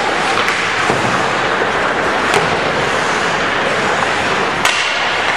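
Ice hockey play on a rink: a steady scraping of skates on the ice and sticks clacking, with three sharp cracks of sticks on the puck or the puck against the boards, about a second in, midway and near the end.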